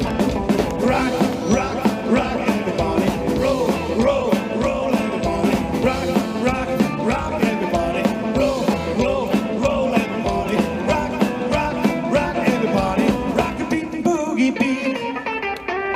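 Live rockabilly band playing an instrumental stretch with a steady drum beat. About fourteen seconds in the drums stop and the guitar carries on alone.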